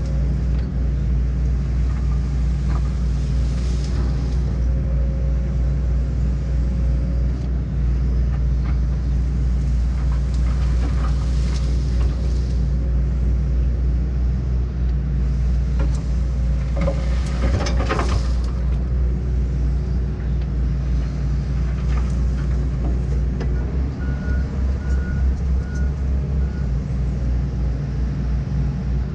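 John Deere 135G excavator's diesel engine running steadily under work, with a burst of cracking and knocking a little past halfway as the bucket strips brush. A few short high beeps sound near the end.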